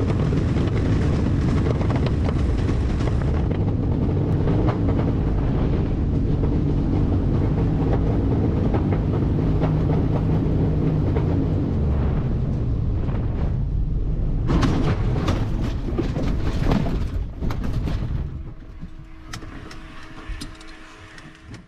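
Heavy, steady rumble of a light aircraft coming down in an engine-out forced landing, with a burst of clattering jolts about fifteen seconds in. After about eighteen seconds it falls much quieter, leaving a steady hum.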